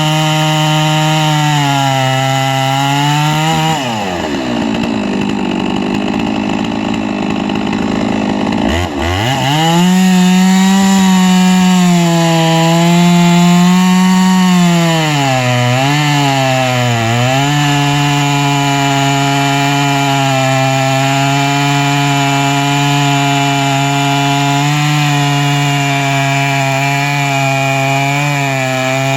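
Two-stroke chainsaw on a chainsaw mill, running hard and steady as it cuts through wood. About four seconds in the engine speed falls away almost to nothing. It revs back up around nine seconds in, runs higher for a few seconds, dips twice, then settles to a steady cutting pitch.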